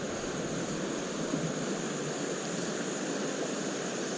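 Creek water rushing steadily over rocks in a shallow riffle.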